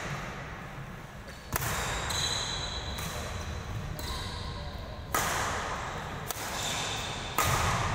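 Badminton rally: about three sharp racket hits on the shuttlecock, each ringing on in the big hall, with thin high squeaks between them.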